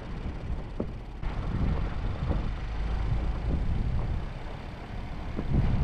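Vehicle driving slowly on a rough dirt road: an uneven low rumble with small irregular bumps.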